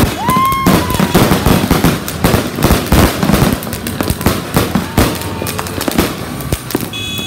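Fireworks going off in rapid succession: dense bangs, pops and crackling, with a brief rising whistle just after the start. The barrage thins out near the end.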